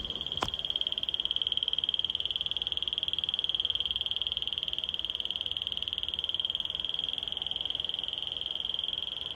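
Smoke detector's alarm sounding one continuous, high-pitched tone with a fast flutter in it, rather than a normal beep pattern. It is malfunctioning, which its owner puts down to the unit being over 10 years old. A short click comes about half a second in.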